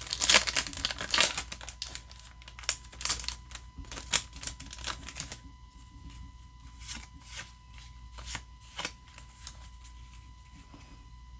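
Yu-Gi-Oh trading cards being handled and slid through a stack in the hands: a quick run of light clicks and flicks of card stock, thinning out to occasional ones after about five seconds.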